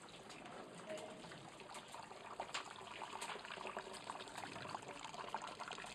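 Wort trickling and bubbling inside a Braumeister electric brewing kettle as the mash is recirculated during a rest at 65 °C: a steady, quiet trickle with many small irregular splashes and pops.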